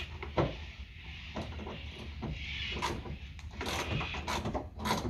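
Irregular clicks and knocks of hand tools and plastic and metal bumper parts being handled as a car's front bumper is taken off. A sharp knock comes just after the start, and a quick run of clicks comes a little past halfway.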